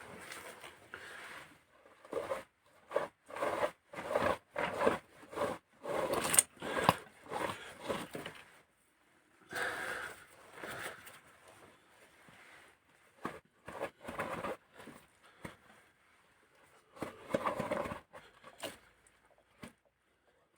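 Irregular run of short scraping, rubbing and rustling noises from hands handling parts and tools on a stripped engine cylinder head, with a lull about two thirds of the way through.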